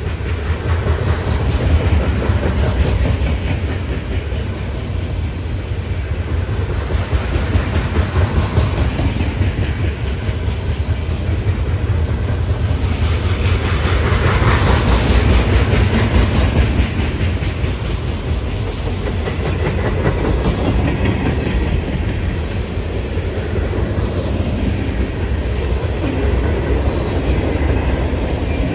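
Freight train cars rolling past, with a steady low rumble and the rapid clickety-clack of wheels over rail joints, swelling louder for a few seconds around the middle.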